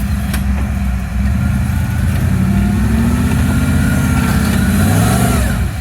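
Off-road rig's engine running hard under load on a hill climb. Its pitch rises through the middle and drops near the end.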